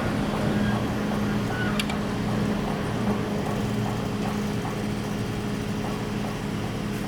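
Tokyu Meguro Line electric commuter train running past: a steady rumble with a held low motor hum, and a sharp click about two seconds in.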